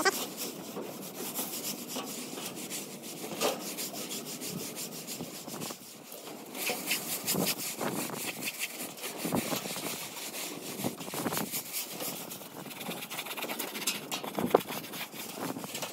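Hand sponge float rubbed over a rendered wall: a run of repeated scratchy scraping strokes, pausing briefly about six seconds in.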